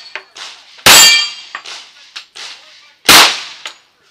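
Two .45 ACP 1911 pistol shots about two seconds apart. The first is followed by steel targets clanging and ringing from the hits.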